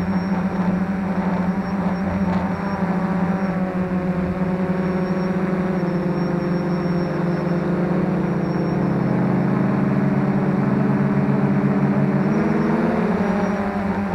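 F450 quadcopter's motors and propellers humming steadily, several close pitches beating against each other. The pitches spread apart in the second half and rise near the end as the throttle changes.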